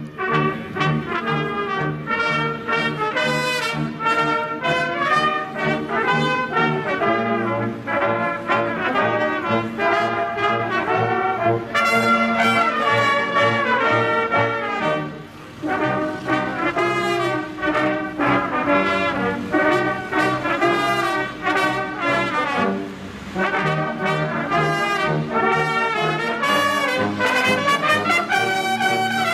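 Brass band playing a piece with several brass parts together over a pulsing low bass line, dipping briefly about halfway through.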